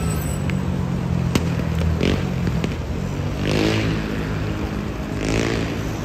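Street traffic: a motor scooter's small engine running, rising in pitch a little past halfway as it speeds up, over the hiss of passing cars.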